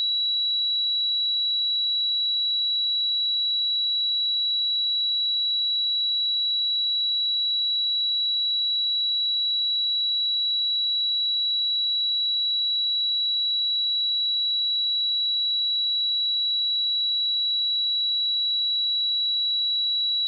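A pure 3912 Hz sine-wave test tone, a single high-pitched steady whistle-like pitch held at constant level without change.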